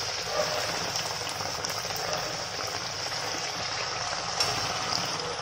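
Semolina golgappa puris deep-frying in hot oil in an iron kadhai: a steady sizzle with a few faint small crackles.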